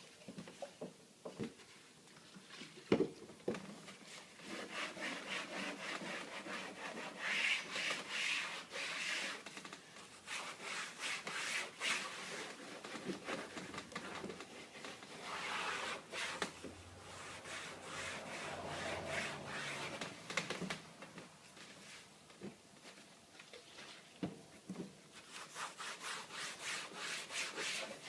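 Paper towel wet with alcohol rubbing over the shower inlay in quick back-and-forth wiping strokes, with a sharp knock about three seconds in.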